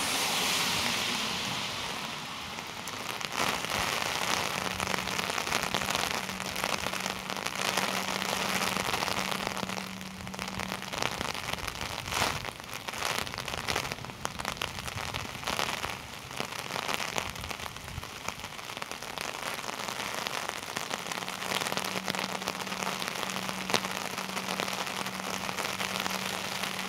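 Heavy rain falling, with many sharp drops striking close to the microphone. A wash of hiss swells and fades in the first couple of seconds, and a steady low hum comes in twice, once in the first half and again near the end.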